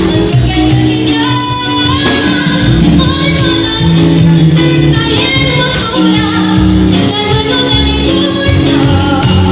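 A young girl singing a song through a microphone, backed by a live band.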